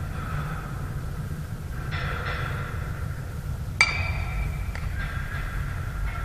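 A bat striking a ball once, a sharp ping that rings on briefly, a little over halfway through, over a steady low rumble of wind on the microphone and faint distant voices.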